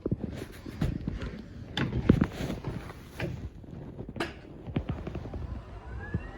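Irregular knocks and clattering over a low rumble, with a sharp click about two seconds in and another about four seconds in.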